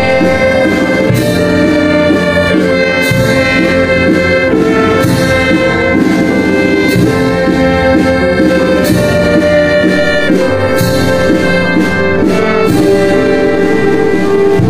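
Brass-led band music: held notes change every second or two, with a sharp accent roughly every two seconds.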